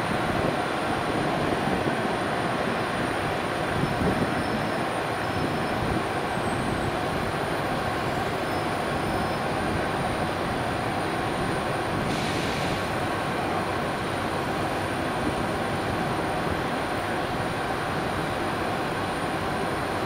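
EP2K DC electric locomotive standing with its cooling fans and blowers running, a steady drone. A short hiss sounds about twelve seconds in.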